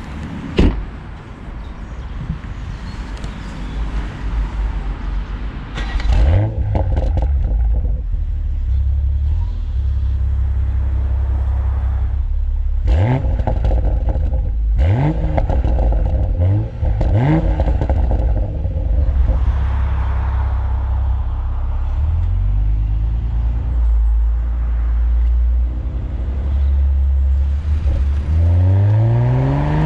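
BMW Z4 M40i's 3.0-litre twin-turbo straight-six exhaust, driven under load. The revs rise in three quick sweeps about halfway through and in a long rising pull near the end. A few sharp exhaust pops and cracks come along the way.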